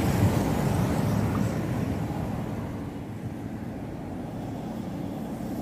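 Steady city road-traffic noise from passing cars and buses, loudest at the start and easing off about halfway through.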